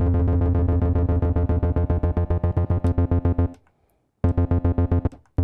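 TB-303-type bass synthesizer playing a fast, even run of sixteenth notes on a single low note, buzzy and rich in overtones. The notes stop for a moment about three and a half seconds in, then again briefly near the end.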